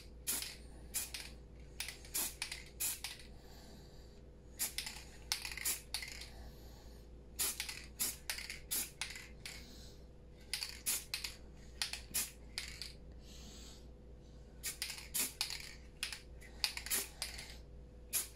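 Aerosol spray-paint can sprayed in short hissing puffs, two to four at a time with pauses between, building up light coats of paint.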